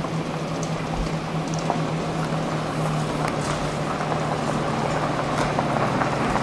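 Lamborghini Reventon 6.5-litre V12 engines idling as the cars creep forward at walking pace: a steady, even low drone.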